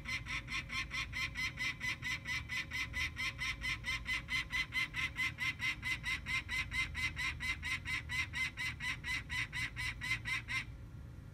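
Peregrine falcon giving its harsh, rapid kak-kak-kak call, the cacking that falcons make in alarm or at the nest ledge, about four to five notes a second. It stops abruptly near the end.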